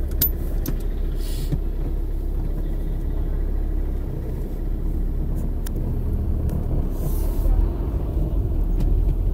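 Steady low engine and road rumble of a motor vehicle riding through town traffic, with a few brief clicks and two short hisses.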